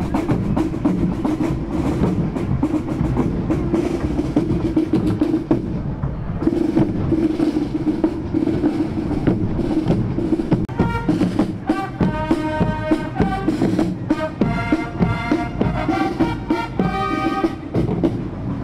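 Marching fanfare corps: drums beat a steady march rhythm throughout, and fanfare trumpets come in about eleven seconds in with a tune of changing notes that stops shortly before the end.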